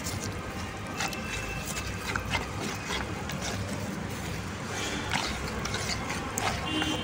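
A spoon stirring a thick cornflour-and-water slurry in a plastic bowl: irregular light scrapes and clicks of the spoon against the bowl.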